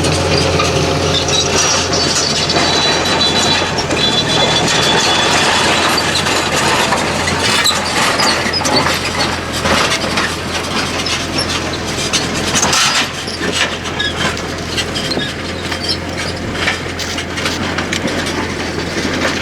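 A vehicle engine runs steadily with a low hum, with irregular rattling and clattering that is densest around the middle.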